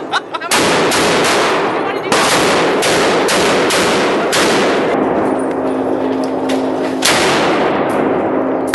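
Gunshots on a shooting range: about ten sharp reports in an uneven series, most in the first four and a half seconds and one more about seven seconds in, each followed by a long echoing tail. A steady low hum comes in about five seconds in.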